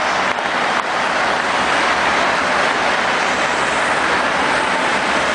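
Steady wash of noise from a helicopter running on the ground, its turbine and rotor mixed with a large stadium crowd applauding and cheering.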